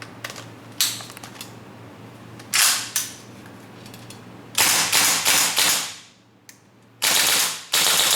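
WE AK74 gas blowback airsoft rifle firing on red gas: two single shots with pauses between them, then rapid bursts of shots about four and a half seconds in and again near the end.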